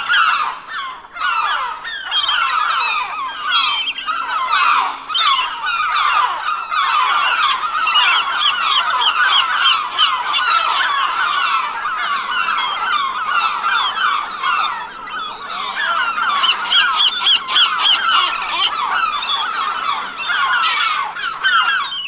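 A flock of gulls calling continuously, many short overlapping cries at once.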